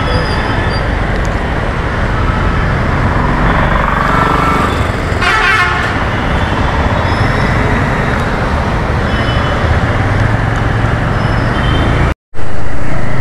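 Bajaj Avenger motorcycle riding through city traffic, its engine under a steady rush of road and wind noise. A vehicle horn sounds briefly about five seconds in. The sound drops out for an instant near the end.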